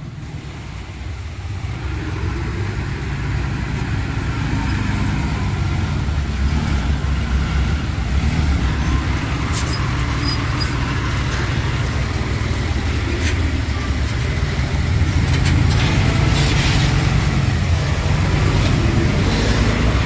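Komatsu D31P bulldozer's diesel engine running steadily, growing louder over the first few seconds, with a few sharp knocks in the second half.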